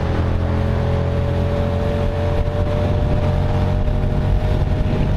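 Kasinski Comet GTR V-twin motorcycle with an aftermarket exhaust running on the move, a steady engine note that climbs slightly in pitch.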